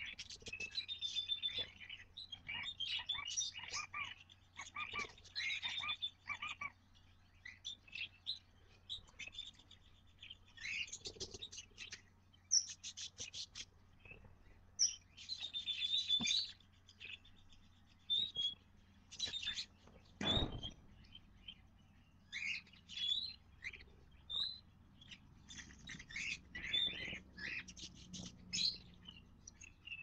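Cockatiels and budgerigars in a nest box, chicks and adults, chirping and calling in many short, high notes that come in clusters with brief gaps. There is one low thump about twenty seconds in.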